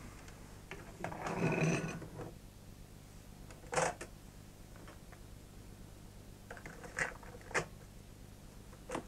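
Portable cassette recorder being loaded and worked by hand: a rustle of handling, then a sharp click of the cassette door springing open about four seconds in, two more clicks some seven seconds in as the door is shut and the keys are pressed, and another click near the end.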